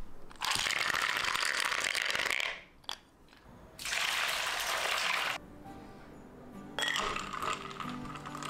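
Ice cubes clattering into a bamboo bowl, then water pouring in from a glass bowl to make an ice bath; about seven seconds in, a glass bowl clinks down into the ice water. Background music plays.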